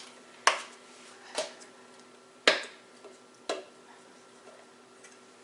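Food containers and dishes being handled, knocking sharply four times about a second apart, over a faint steady hum.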